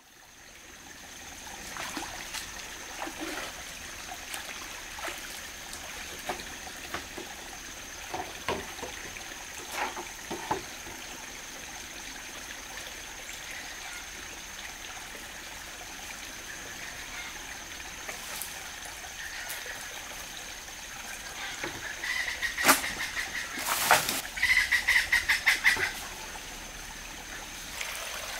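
Small forest stream running steadily over stones, with a thin steady high insect-like tone above it. Scattered knocks of a long bamboo pipe being laid and shifted by the water, and near the end a few loud sharp knocks followed by a quick run of rapid pulses.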